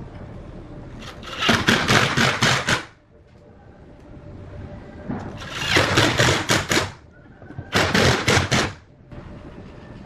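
A power tool working material in three loud, harsh bursts, each lasting one to two seconds, with a low steady hum between them.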